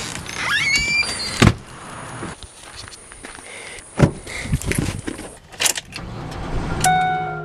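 Car door opened and shut with solid thuds about four and five and a half seconds in, among footsteps and keys jangling as a key goes into the ignition. A short rising squeak comes about half a second in, and steady music tones come in near the end.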